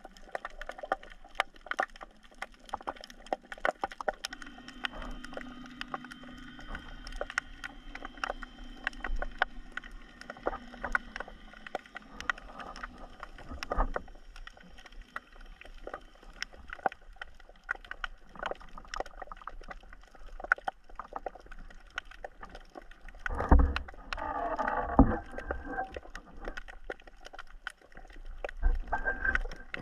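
Underwater sound picked up by a submerged camera: a constant crackle of sharp clicks. A steady hum comes in about four seconds in and stops about thirteen seconds in. Loud bursts with low thumps come twice near the end.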